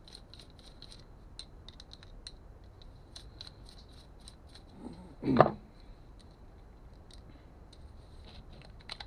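Screwdriver clicking and scraping against the small metal housing of a motorcycle suspension preload-adjuster drive motor as it is pried apart, with one much louder clunk about five seconds in.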